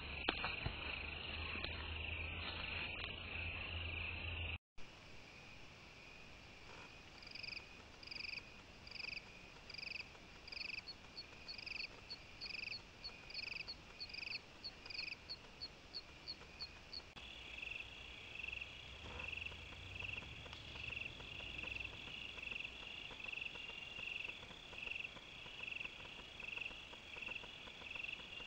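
Night-calling insects such as crickets: a dense steady trill for the first few seconds, then evenly spaced chirps about one and a half a second, giving way about halfway through to faster, steadier pulsing chirps.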